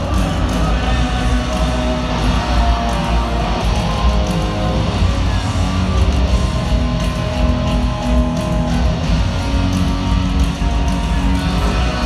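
A live rock band playing loudly through a stadium PA, an electric guitar leading over the band with held notes, heard from high up in the stands.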